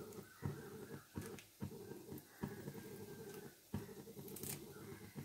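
Faint steady low rumble of a gas stove burner under a frying pan, with a few soft clicks as curry leaves are picked and handled over the pan.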